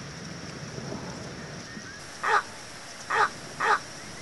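Little egret giving three short, harsh calls, a little over two seconds in, the last two close together. A faint, steady, high-pitched background tone runs throughout.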